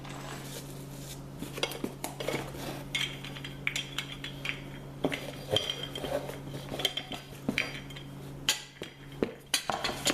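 Small metal mounting hardware (bolts, screws, brackets) clinking and rattling as it is handled, with many irregular light clinks, some ringing briefly.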